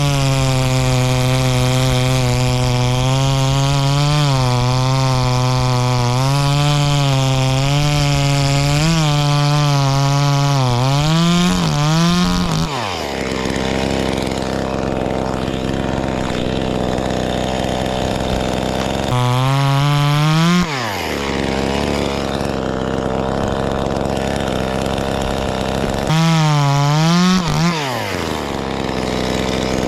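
Small knockoff two-stroke chainsaw (V-modest 2511T) cutting wood at full throttle for about twelve seconds, its pitch dipping and wavering under load. It then drops to idle, with two short blips of throttle later on.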